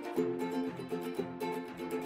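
Background music: a light plucked-string tune strummed in a steady rhythm.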